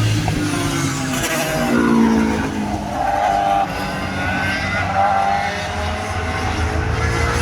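Several classic Honda sports and racing motorcycles passing on track, their engine notes overlapping and rising and falling in pitch.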